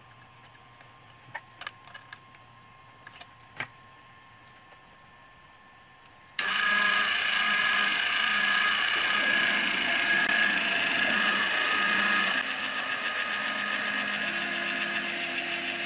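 A few faint clicks, then about six seconds in the Proxxon MF70 CNC mill's spindle motor comes on suddenly and runs with a steady high whine. Near the end it gets slightly quieter and a lower hum joins in.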